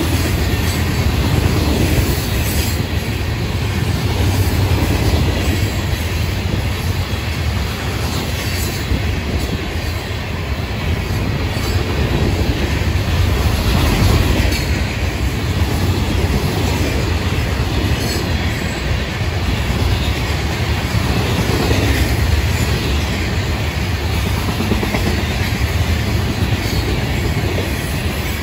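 A loaded freight train of hopper cars rolling steadily past at close range, a continuous heavy rumble with the wheels clicking over the track now and then.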